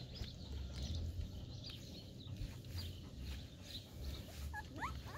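Garden ambience: scattered short bird chirps over an uneven low rumble, with a few short rising squeaks near the end.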